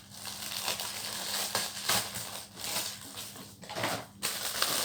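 Plastic packaging crinkling and crunching in irregular bursts as a face shield is unboxed by hand.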